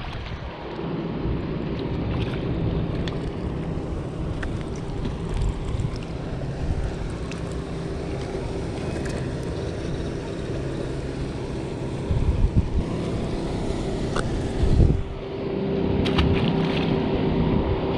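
A boat's motor running steadily, with wind buffeting the microphone. There are a few clicks and a thump near the end.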